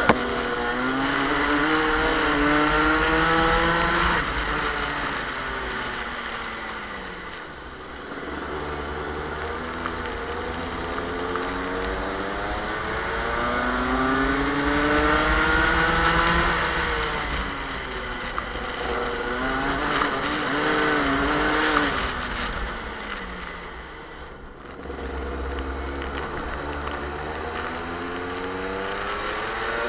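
Two-stroke Rotax kart engine at racing speed, its revs climbing along the straights and falling away under braking into the corners, lowest about eight and twenty-five seconds in. A steady hiss of wind and wet-track spray runs underneath.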